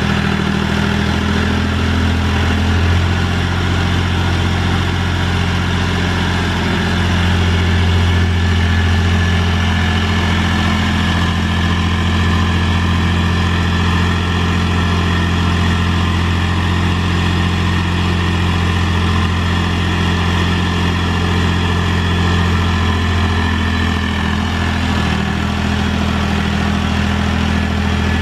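Mahindra 3525 tractor's diesel engine running steadily, its pitch shifting slightly a few times as it works a box blade through dirt.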